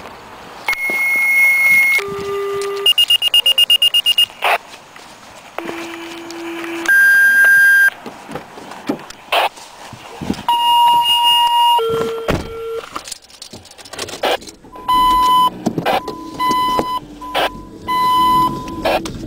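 Minitor V fire pager sounding two-tone sequential dispatch tones: pairs of long steady tones at different pitches, one high and one low, with a rapid pulsing beep about three seconds in and a run of short beeps near the end. These are the tone-outs that alert the stations to a fire call.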